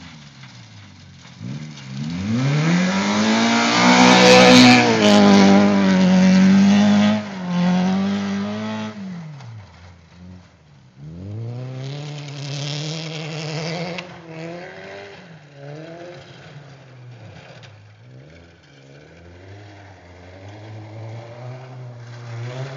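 Car engine revving hard under acceleration, its pitch climbing and then held high and loud from about four to eight seconds in before it drops away. It climbs again at about eleven seconds, then rises and falls several more times, fainter, as the car moves off.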